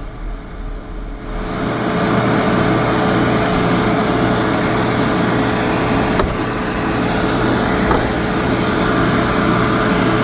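Refrigerant recovery machine running steadily with a constant hum, pumping R-22 out of the old air conditioner into a recovery tank. It swells up about a second in.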